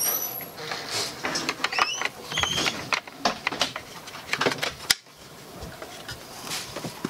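Clicks, knocks and scrapes of a Remington 700 rifle's barreled action being worked into a Magpul Hunter polymer stock, with a few short high squeaks. The handling goes quieter about five seconds in.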